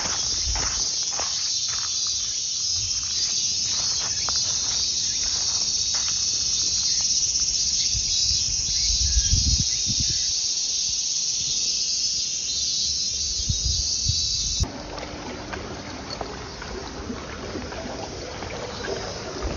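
Steady high-pitched insect chorus that cuts off abruptly about fifteen seconds in, leaving duller, lower background noise. Occasional soft low thumps throughout.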